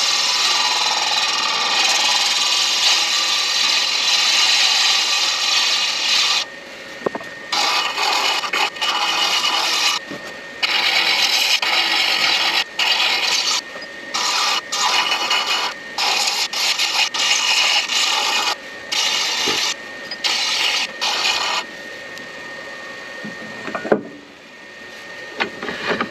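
Midi lathe spinning a pen blank while a turning tool scrapes it, a steady hissing cut for about six seconds, then broken into many short cuts as the tool is touched on and off, with the lathe's faint whine underneath.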